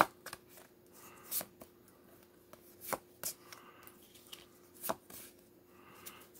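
Magic: The Gathering cards being flipped through by hand, with a few sharp snaps and taps at irregular intervals as cards are moved through the stack.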